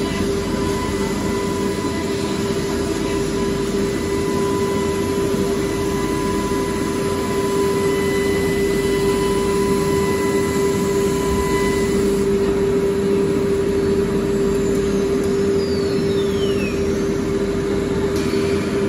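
CNC woodworking router and its dust extraction running steadily: a constant hum-whine over dense machine noise. Higher tones in it stop about two-thirds of the way through.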